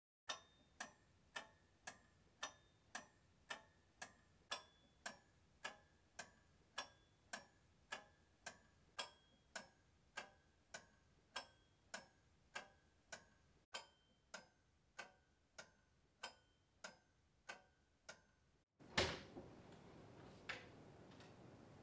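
Wall clock ticking evenly, about two sharp ticks a second, each with a slight ring. Near the end the ticking stops; a louder knock and a steady room hiss follow, with a second fainter knock, as a door is opened.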